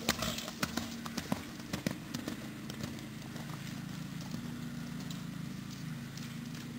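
A pony's hoofbeats on a sand arena, distinct knocks in the first couple of seconds, then fainter as it moves away. A steady low hum runs underneath.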